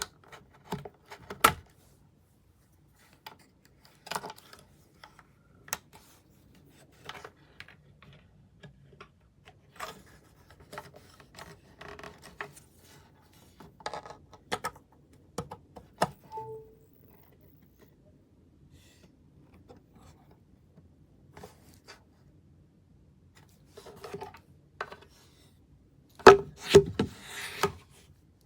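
Scattered clicks, taps and light knocks of small objects being handled, a few seconds apart, with a louder burst of knocks and rattling about two seconds before the end.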